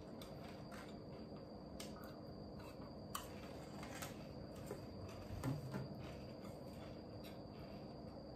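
Faint, scattered clicks and crunches of potato chips being picked up with chopsticks and chewed, a little louder about five and a half seconds in, over a steady faint room hum.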